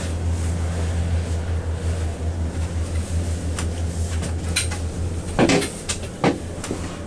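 Steady low drone inside a moving Doppelmayr D-Line ten-seat gondola cabin travelling along its rope, with a few sharp knocks and clicks in the second half.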